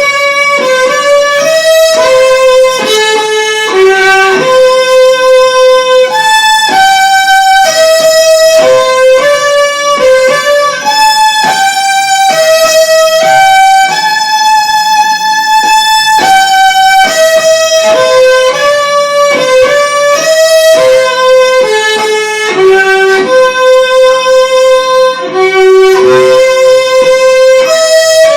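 Instrumental music: a single melody line of held notes, moving mostly in the middle range with a few higher notes.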